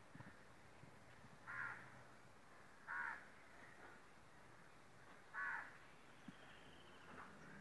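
Three short, harsh animal calls, about a second and a half to two and a half seconds apart, faint against a quiet background.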